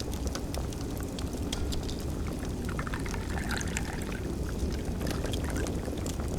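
Wood fire crackling: a steady low rumble with sharp pops and snaps scattered irregularly, and a short flurry of them about three seconds in.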